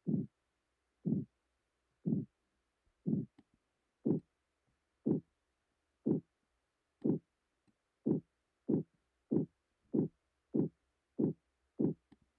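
Simulated pulsatile tinnitus: a heartbeat-like pulsing sound, one short pulse about every second, mimicking hearing one's own pulse in the ear. About eight seconds in the pulses quicken to roughly three every two seconds.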